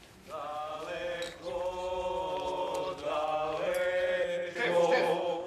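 A group of voices singing together in long, held, chant-like notes.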